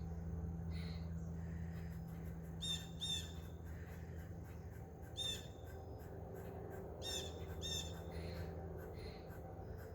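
Short, harsh calls repeated in pairs every two seconds or so, from an animal in the trees, over a low steady hum.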